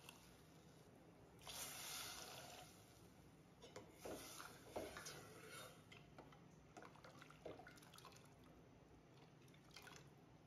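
Tamarind juice poured from a small bowl into a steel pot of rasam, a short splashing trickle about a second and a half in, then a steel ladle stirring the liquid, with light sloshing and scattered knocks of the ladle against the pot.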